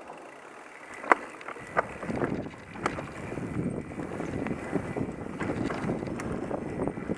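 Mountain bike being ridden over a dirt trail: tyre and wind noise on the microphone that builds up after about a second and a half, with sharp clicks and knocks as the bike rattles over bumps.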